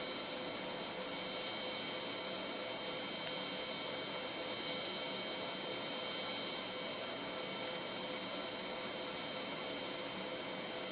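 Steady electrical hum with several constant high-pitched whining tones, unchanging throughout.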